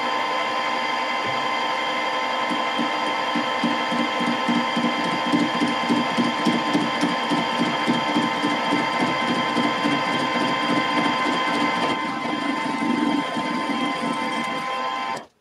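Emco Maximat Super 11 metal lathe running at about 200 RPM with a steady whine, its tool facing the end of a square steel bar. This is an interrupted cut, heard as a rapid, repeated chatter from about two to thirteen seconds in. The sound cuts off suddenly near the end.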